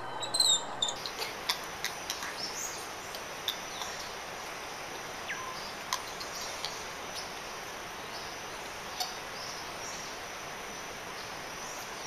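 Outdoor ambience: a steady hiss with scattered short, high chirps and a few sharp clicks, changing abruptly about a second in.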